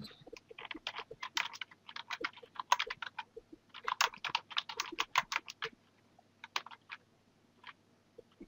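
Typing on a computer keyboard: a quick run of keystrokes that thins out about six seconds in, followed by a few scattered taps.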